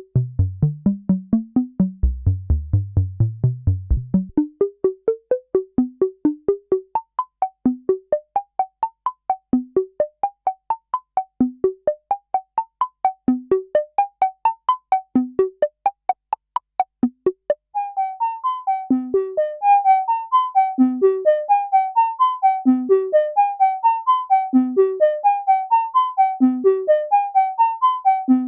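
Behringer System 100 analog modular synthesizer playing a fast repeating bass line of short, plucky pitched notes. About two-thirds of the way through, the tone changes to longer, brighter notes in a pattern that repeats about every two seconds.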